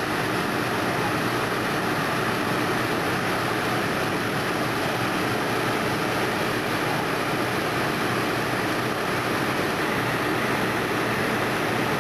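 A steady, even drone of motors running on the fireground, unbroken and without knocks or voices.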